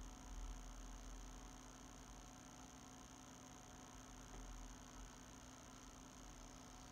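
Near silence: faint steady hum and hiss of room tone.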